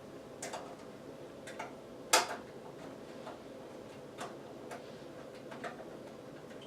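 Irregular light clicks and taps of small hard parts being handled during a desktop computer build, over a faint steady hum. The loudest click comes about two seconds in.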